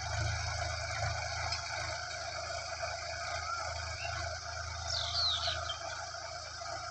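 Sonalika RX 47 4WD tractor engine running steadily under load as it pulls a cultivator through dry soil. A few brief high chirps come about five seconds in.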